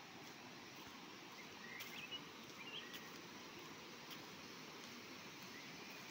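A faint, steady rush of water from a rocky river with rapids, with a few short bird chirps about two and three seconds in and again near the end.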